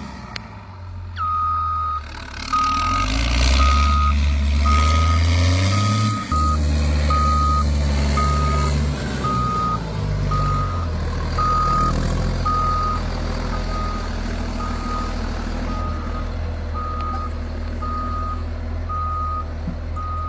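Reversing alarm on a heavy construction vehicle, beeping about once a second in one steady tone over the low running of the machine's engine, which revs up and down in the first half.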